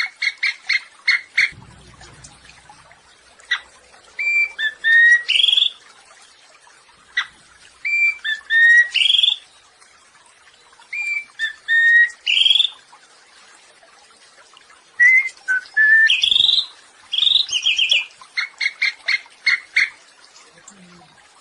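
A samyong songbird singing short, high phrases that repeat every few seconds. Each phrase is a quick run of sharp repeated notes mixed with clear whistled notes that slide up in pitch.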